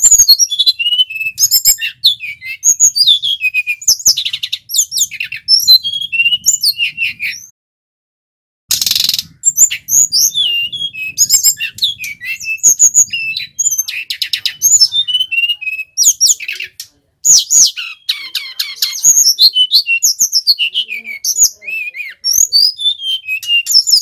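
A male brown-chested jungle flycatcher singing a long, varied song of high whistled notes that glide up and down, mixed with rapid buzzy trills, breaking off for about a second a third of the way through and briefly again later.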